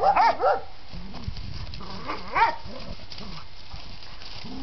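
Dogs barking excitedly in short, high yips: three in quick succession at the start and one more about two seconds in, with lower, quieter calls in between, over steady background noise.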